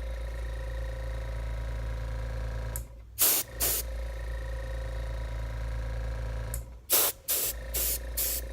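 Airbrush spraying coating in short hissing bursts, two about three seconds in and four quick ones near the end, over the steady hum of a small airbrush compressor running throughout.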